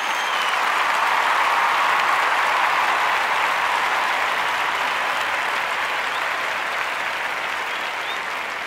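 Crowd applauding, with a few whistles, growing louder over the first couple of seconds and then slowly fading.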